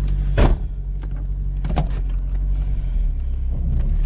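A 1998 Chevrolet Corvette C5's LS1 V8 running steadily with a low drone. A sharp thump comes about half a second in, and a lighter knock near the two-second mark.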